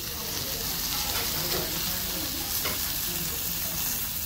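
Beef steak with white sauce sizzling on a hot iron sizzler platter: a steady frying hiss with a few small pops.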